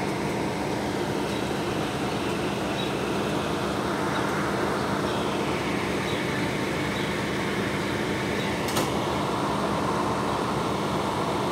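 Steady hum of a fire department ladder truck's diesel engine idling in the street, with one short click about nine seconds in.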